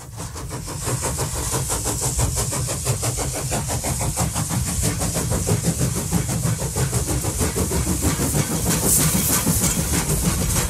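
Train running: a steady low rumble with hiss and rapid clicking, fading in from silence at the start.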